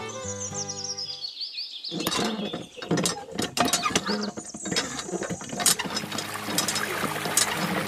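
Background music ends about a second in. Then comes irregular clicking and creaking of a miniature hand pump's lever and plunger being worked by hand. From about six seconds in, water splashes steadily from the pump's spout while the clicks go on.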